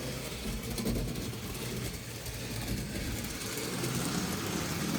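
Model railway train running on the layout track: a steady electric motor whirr with the rolling noise of wheels on rail.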